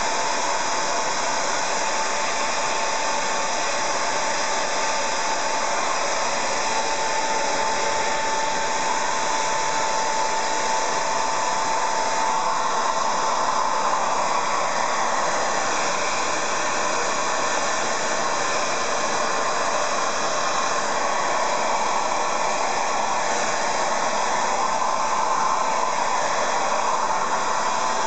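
Hair dryer running continuously, a steady rush of air with a thin whine, its sound shifting slightly about twelve seconds in as it is moved.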